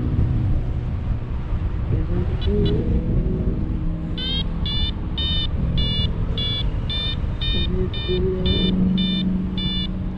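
Paragliding variometer beeping about twice a second, short high electronic beeps, the climb tone that signals rising air in a thermal; it starts about four seconds in. Underneath, steady wind rush on the microphone.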